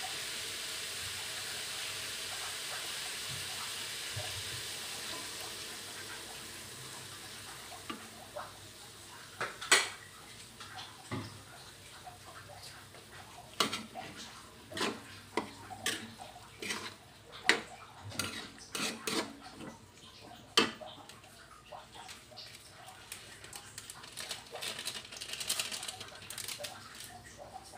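Diced potatoes and carrots sizzling in a wok, a steady hiss that fades away over the first several seconds. Then a metal spatula scrapes and knocks against the wok in irregular strokes as the food is stirred.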